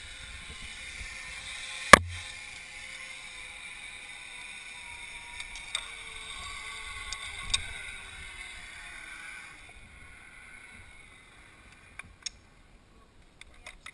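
Zip-line trolley pulleys rolling along a steel cable with a steady whir, with a sharp clack about two seconds in and lighter knocks later. The whir dies away a few seconds before the end, and a few metallic clicks of trolley and clip hardware follow.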